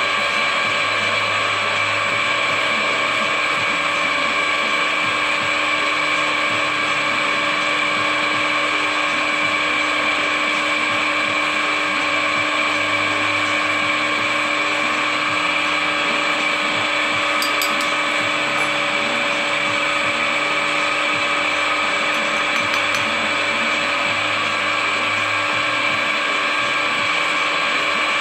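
Bench drill press running steadily, its motor and spindle gearing giving a constant whine.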